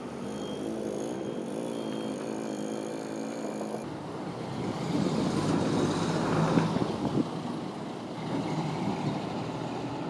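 A JR Hokkaido Bus diesel engine running as the bus pulls away from the stop, swelling to its loudest a few seconds in and then easing off. Before that there is a steadier hum.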